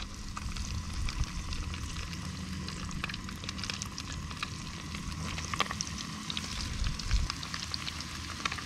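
Breaded sunfish fillets sizzling and crackling in hot oil in a skillet as they are laid in with a fork, over a steady low hum.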